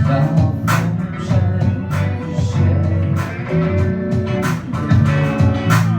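A rock band playing the song's instrumental intro live: guitar over a heavy bass line, with cymbal crashes about every second and a quarter.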